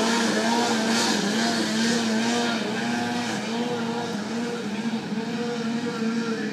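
Polaris IQR 600 snowmobile's two-stroke twin running at high revs as it skims across open water. The pitch wavers up and down about once a second with the throttle, and the sound slowly gets fainter.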